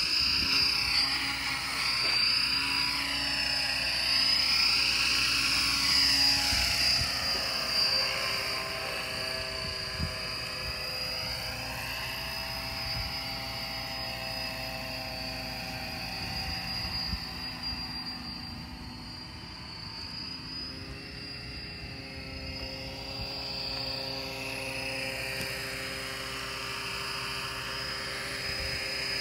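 Electric radio-controlled model aircraft whining in flight: a steady high whine, with a lower whine that rises and falls in pitch, loudest in the first several seconds.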